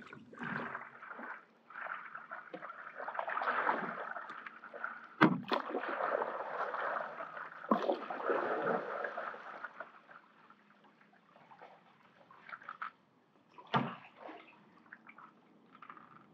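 A stand-up paddle dipping and pulling through lake water, sloshing and gurgling in swells that are louder in the first half. Three sharp knocks stand out, at about five, eight and fourteen seconds.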